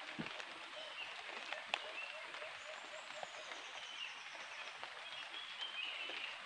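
Forest ambience of birds calling in short repeated notes, with a high descending trill about halfway through, over a steady high hiss. A few sharp clicks of sticks being handled, the loudest a little under two seconds in.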